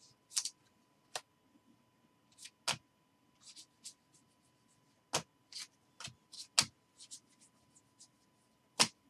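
Cardboard trading cards flicked and slid against one another as a stack is thumbed through by hand: short, irregular snaps and swishes, about one or two a second, with a sharper cluster near the end.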